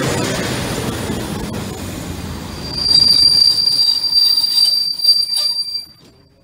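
Passenger train coaches rolling slowly past and braking to a stop. The rumble of the passing train fades, then a loud, steady high-pitched brake squeal sets in a little under halfway through and cuts off suddenly as the train halts near the end.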